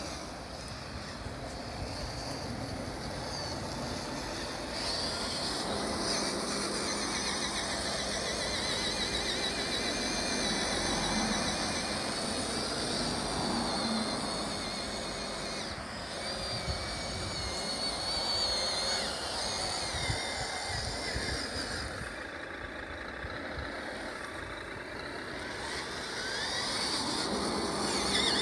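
Electric motor and full-metal geared transmission of an HG P802 scale RC truck whining under heavy load as it crawls up a steep grass bank, the high whine wavering in pitch as the load changes. Wind rumbles on the microphone underneath.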